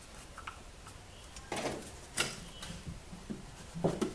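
Small Phillips screwdriver and tiny metal screws being handled while heatsink screws are driven back into a wooden housing: scattered light clicks and ticks. There is a sharper click about two seconds in and a louder cluster of clicks near the end as loose screws are picked up off the table.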